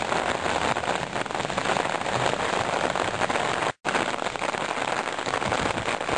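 Steady rain falling, a dense hiss of countless drops striking surfaces. The sound cuts out for an instant about four seconds in.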